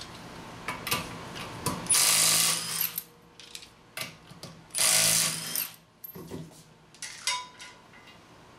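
Milwaukee 3/8-inch cordless impact wrench spinning 19 mm lug nuts off a car's rear wheel, in two short runs about three seconds apart. Metal clicks and a clatter of the socket and loose lug nuts being handled come between and after the runs.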